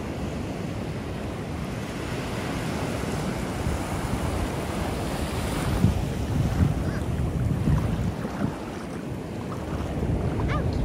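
Ocean surf washing onto the beach, with wind buffeting the microphone in uneven gusts.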